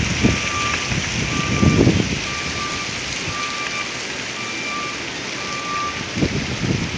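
Strong gusty wind rushing steadily and buffeting the microphone in low rumbles during the first two seconds and again near the end. A high electronic beep repeats about once a second in the background.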